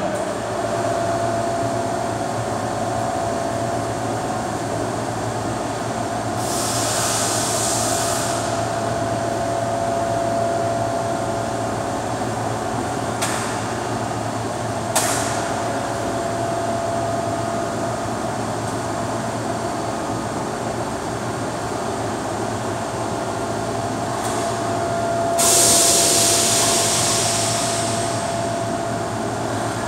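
Steady hum of workshop machinery with a faint steady whine over it, broken by two bursts of hiss, one about six seconds in lasting two seconds and a longer one near the end, and two short clicks about halfway through.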